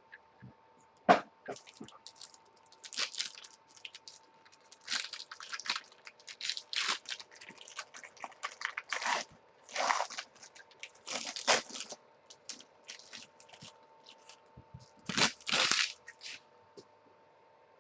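A sealed box of football trading cards being torn open and its packaging handled: wrapper and cardboard crinkle and tear in irregular bursts, with a sharp snap about a second in.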